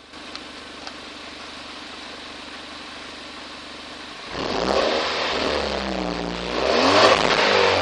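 Volkswagen Scirocco 1.4 TSI (160 hp twincharged four-cylinder) exhaust: the engine idles steadily, then is revved twice from about four seconds in. Each rev rises and falls in pitch, and the second is the louder.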